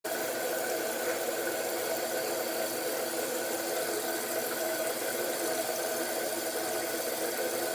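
Steady machine hum with constant hiss and a few held tones, unchanging throughout.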